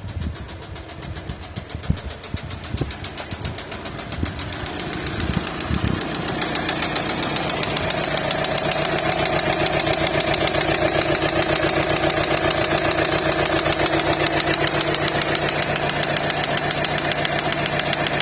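VW Passat B7's 2.0 TDI (CKRA) four-cylinder diesel engine running with a fast, even clatter. A steady hum builds over the first several seconds and then holds; this is the loud noise the owner is pointing out. A few irregular low thumps come in the first seconds.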